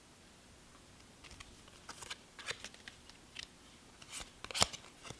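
Yu-Gi-Oh trading cards being handled and slid against one another while moving on to the next card in the pack: a string of short rustles and clicks, the sharpest snap near the end.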